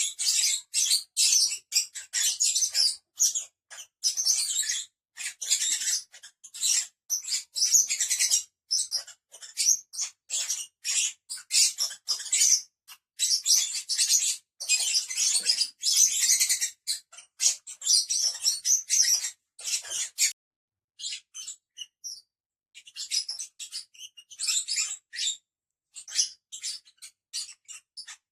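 A group of lovebirds chattering in a dense stream of shrill, high-pitched chirps and squeaks, thinning to sparser calls after about twenty seconds.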